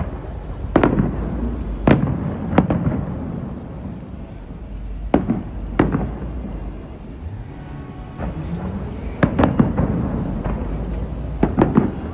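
Aerial fireworks bursting: sharp bangs with a short echoing tail, coming singly and in quick clusters every second or few, over a steady low rumble.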